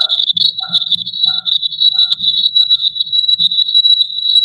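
Audio feedback in a video call: a loud, steady high-pitched squeal with a pulsing chirp repeating about every two-thirds of a second, the sign of an echo loop between an open microphone and speakers. It cuts off suddenly near the end.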